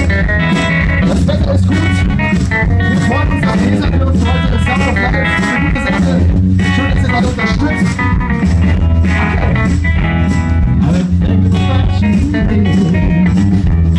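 Live pop-rock band playing, with guitar and bass over a steady drum beat.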